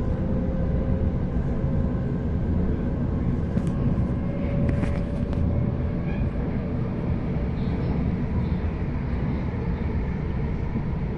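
Interior of a Sydney Trains Waratah electric train in motion: a steady low rumble of wheels on track with a faint steady whine, and a few sharp clicks about four to five seconds in.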